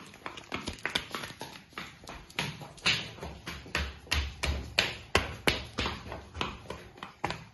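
Children's footsteps on a hard tiled floor: quick, uneven taps and slaps of small sneakers and flip-flops, about three a second.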